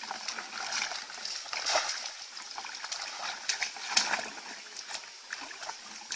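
Irregular splashing and sloshing of shallow water, with a string of sharper splashes, the loudest about two and four seconds in.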